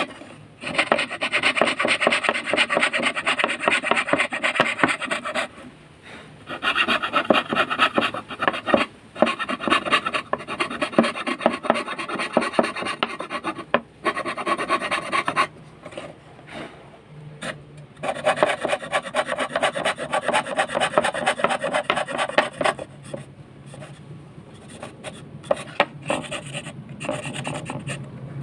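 Manual fret saw cutting wood with quick, rasping back-and-forth strokes, in runs of several seconds broken by short pauses. The sawing turns quieter near the end.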